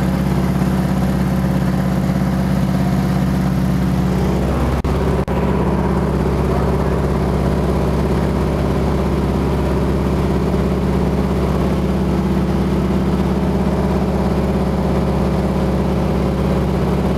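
Beaver floatplane's engine and propeller droning steadily in flight, heard from inside the cabin. The sound drops out briefly twice about five seconds in, then the same steady drone carries on.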